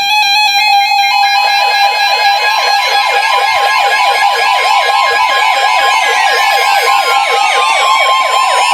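NOAA weather radio receivers alerting for a tornado warning. Buzzy digital header tones give way, about a second and a half in, to a fast warbling siren-style alarm over a steady high alert tone.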